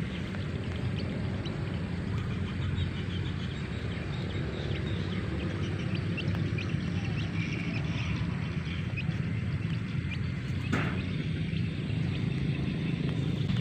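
Young chicks peeping in short, faint high chirps, scattered over a steady low rumble, with one brief rustle about two-thirds of the way through.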